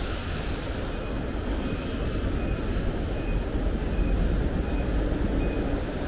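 Commuter train running past with a steady low rumble, and a level-crossing alarm chiming faintly at regular intervals.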